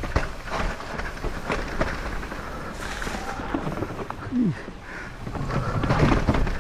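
Santa Cruz Bullit electric mountain bike riding a rough dirt trail: irregular knocks and rattles over steady tyre noise, with a short falling tone about two-thirds through.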